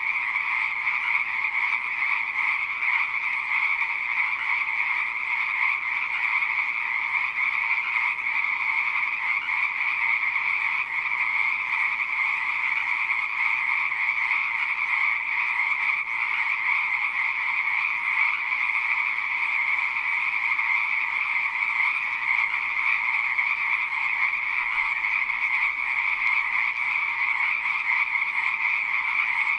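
Frogs croaking in a steady, unbroken chorus, the calls overlapping so densely that there are no pauses.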